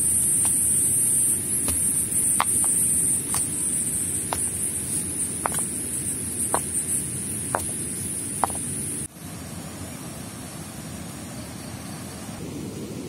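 Heavy stones set down one at a time, knocking sharply against each other about once a second, over a steady rushing of river water and a constant high-pitched hiss. The knocks and the high hiss stop suddenly about nine seconds in, leaving a softer rushing.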